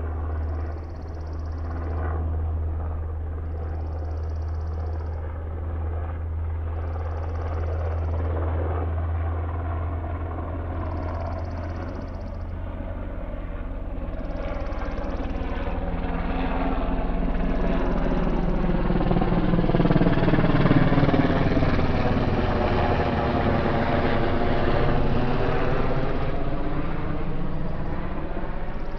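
UH-60 Black Hawk helicopter flying low overhead, its steady rotor and engine sound growing louder about two-thirds of the way through as it passes over, then easing off near the end.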